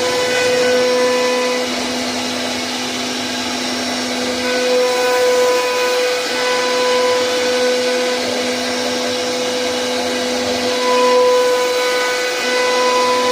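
CNC router spindle running and cutting, a steady high whine with a hissing cutting noise; some of its tones drop out and come back every few seconds as the load changes.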